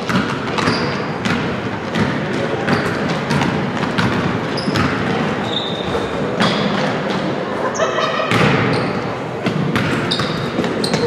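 Basketball game sounds on a hardwood gym floor: the ball bouncing as it is dribbled, players' footfalls and short sneaker squeaks, with voices from the crowd and benches, all echoing in the gym.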